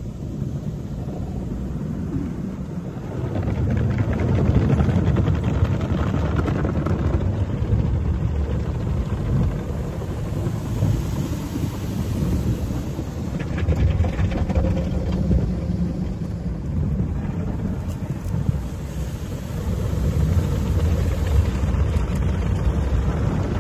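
Automatic car wash spraying water and soap over a car, heard from inside the cabin: a deep, steady rushing and drumming on the body and glass that swells a few seconds in and again near the end.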